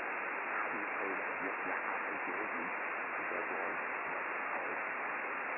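Steady receiver hiss from an Icom IC-9700 in upper sideband on the RS-44 satellite's 70 cm downlink, with a weak voice faintly audible in the noise during the first couple of seconds.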